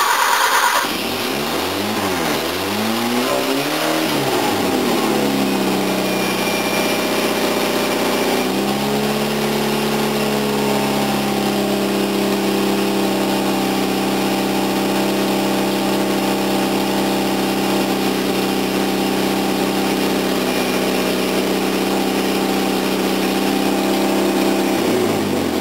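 Toyota 4K four-cylinder pushrod engine running on a newly fitted Weber 32/36 DGV twin-choke carburettor. Its speed rises and falls a couple of times in the first few seconds, then it settles into a steady run, and it dies away at the very end. The throttle cable is not letting it return to the idle stop.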